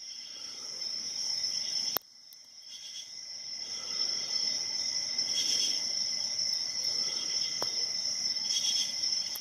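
Steady high-pitched chirring of insects such as crickets, broken by a sharp click and a sudden drop in level about two seconds in, with a faint click later on.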